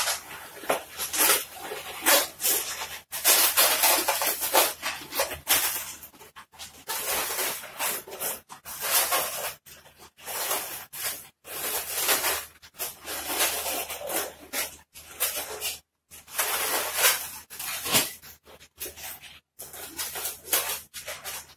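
Latex modelling balloons being twisted and handled by hand, the rubber rubbing in irregular bursts with short pauses between.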